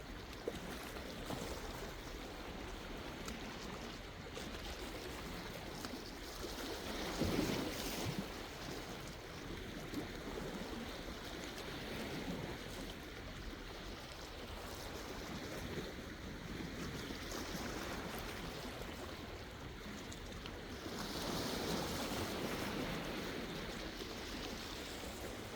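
Sea waves breaking and washing ashore in a steady surf, with a louder wave about seven seconds in and another swell of surf a little past twenty seconds.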